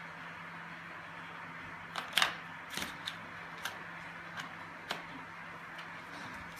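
Briard dog gnawing and nosing a bone on a tile floor: the bone clicks and clacks against the tiles and teeth in an irregular string of sharp knocks, starting about two seconds in, the loudest near the start and fainter ones after.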